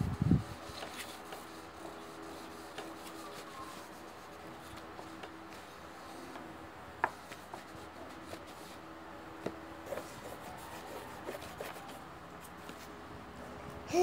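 Pencils scratching and rubbing on paper on a tabletop, with a few light taps and clicks.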